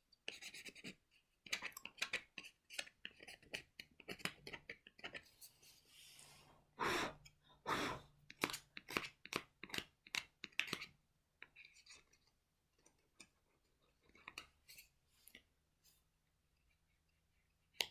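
Plastic gift card being scratched with the edge of another card to rub off the scratch-off strip: quick bunches of dry scraping strokes, thinning out after about eleven seconds.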